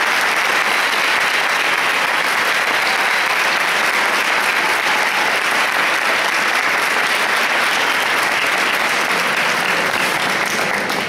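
Audience applauding: steady, dense clapping that starts to thin out near the end.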